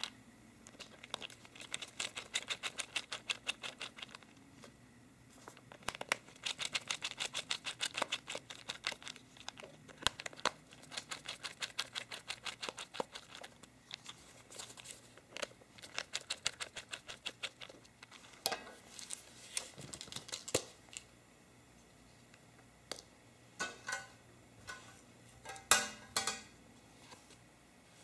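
Handling noise from an opened JBL Go's plastic case and internals: long runs of rapid clicking and scratching as the parts are worked by hand, then scattered clicks and a few short squeaks near the end.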